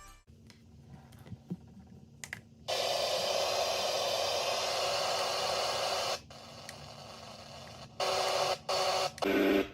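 FM radio static from a sunrise alarm clock's built-in radio: a loud, even hiss that cuts in and out several times, with only a faint hum before it comes in. Just at the end a broadcast voice starts to come through.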